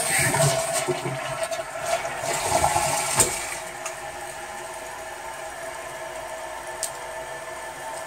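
Mansfield toilet flushing: water rushes out of the tank for about four seconds, with a sharp knock a little after three seconds in. The ballcock float-valve then hisses steadily as the tank refills.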